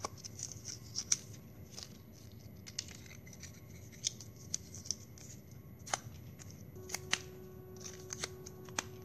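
Plastic drinking straw drawn along a saw blade in short, irregular scraping strokes with a few sharper clicks, working the straw to curl it and mark it with a pattern.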